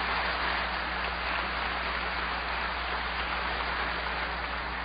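Large audience applauding, a steady even clapping that eases off slightly near the end.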